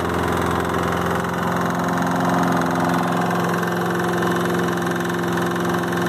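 Briggs & Stratton engine on a Toro lawn mower running at a steady speed with a huge loud knock, which the owner thinks comes from a lot of play between the connecting rod and the crankshaft.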